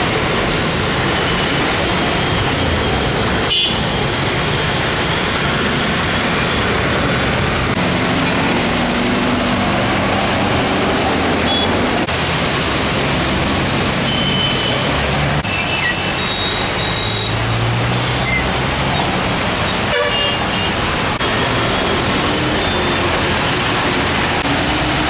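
Vehicles driving through fast-flowing floodwater: a steady loud rush of water and traffic, with short vehicle horn toots, several together about two-thirds of the way through.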